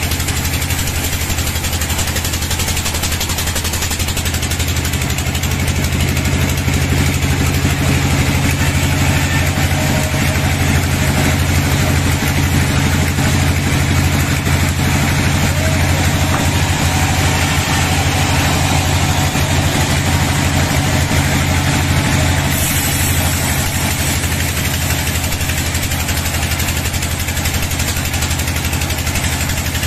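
Band sawmill running steadily with a deep, even hum, its blade sawing lengthwise through a bayur log.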